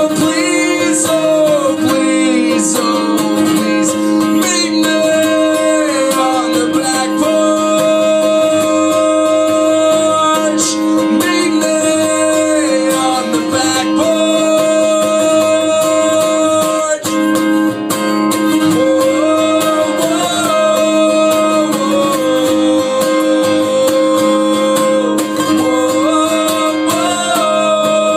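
A man singing solo with a strummed acoustic guitar: sustained, wavering vocal lines over steady chords, played live.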